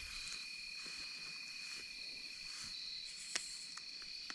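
Steady chorus of insects singing, two high, even tones that run on unchanged, with a single sharp click about three and a half seconds in.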